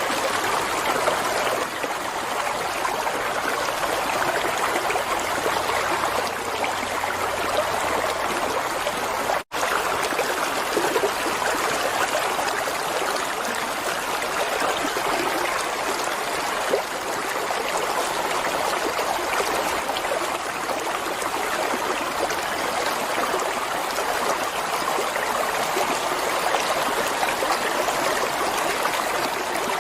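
Flowing water running steadily, like a stream, with one split-second dropout about nine and a half seconds in.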